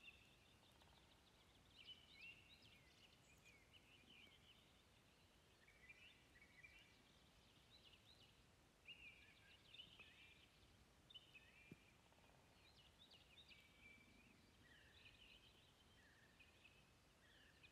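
Faint songbirds chirping and trilling in a quiet forest, short calls following one another throughout.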